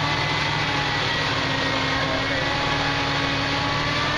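Off-road vehicle engines running steadily with a held tone, as a mud-stuck Jeep Cherokee XJ is recovered by a tow truck on a chain.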